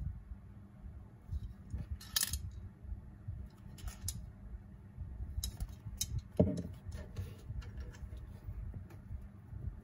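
Handling noise from a plastic spray can and its clear plastic cap: scattered small clicks and taps, with one louder knock about six and a half seconds in that rings briefly.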